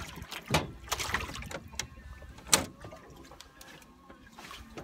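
A few knocks and clunks as the angler moves about and handles gear in a small fishing boat, the loudest about two and a half seconds in.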